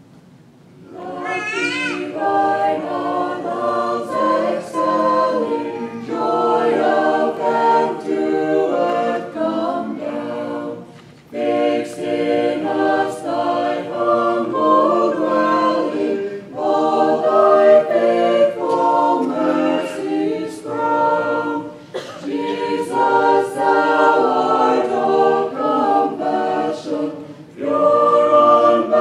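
A small mixed group of men's and women's voices singing together a cappella into microphones, coming in about a second in, with short breaks between phrases.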